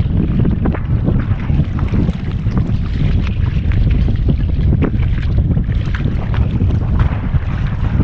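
Wind buffeting the microphone in a steady low rumble, with irregular splashes and knocks of water against a small boat's hull.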